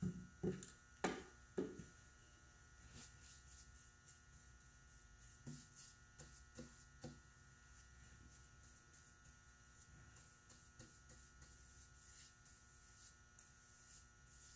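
Faint swishes of a bristle paintbrush spreading polyurethane over a stained wooden cabinet door, under a steady electrical hum. In the first two seconds a few louder knocks come as the brush is dipped and wiped against the polyurethane can.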